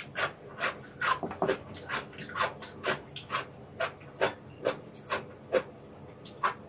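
Close-miked eating sounds: wet smacking clicks of a mouth chewing warm noodles, about three a second at an uneven pace.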